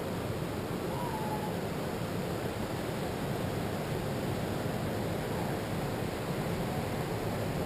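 Steady, even rush of ocean surf breaking on a sandy beach.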